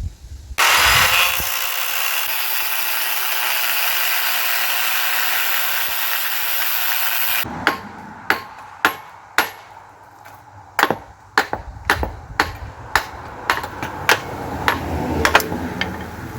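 An angle grinder cuts steel on a Dana 60 front axle for about seven seconds with a steady, even hiss, then stops; a hammer then strikes the metal about fifteen times in sharp blows, roughly two a second with a short pause partway through.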